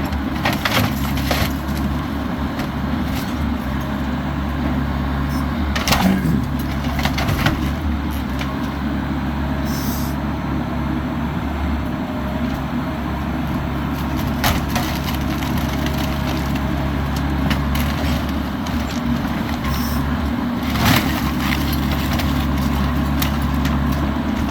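Bobcat E85 excavator's diesel engine running steadily as it works, with several sharp cracks and crunches of a house's wood and debris being broken, the loudest about a quarter of the way through and near the end.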